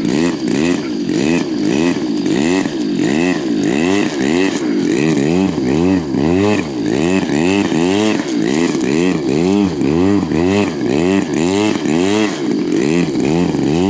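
RCGF 26cc two-stroke gasoline engine of a 1.5 m Pitts Special model biplane running as the plane taxis on grass, its pitch rising and falling about twice a second.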